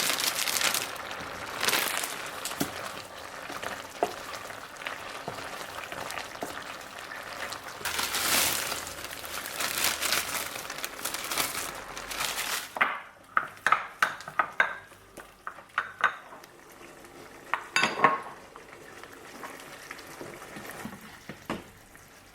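Coconut-milk Thai curry with shrimp simmering and sizzling in a pan while it is stirred, for roughly the first half. Then comes a quick run of metal utensil clinks and taps against the pan, with one louder knock about two-thirds of the way through.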